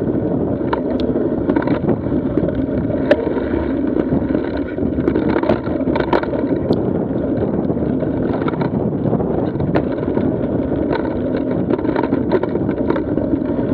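Mountain bike riding singletrack: a steady rumble of knobby tyres on dirt and gravel, mixed with wind on the microphone, broken by scattered clicks and rattles from the bike.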